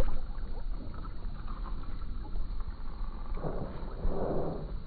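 A pumpkinseed sunfish is dropped back into an ice-fishing hole and splashes once at the start. After that, wind rumbles steadily on the microphone, with a short swell of noise about three and a half seconds in.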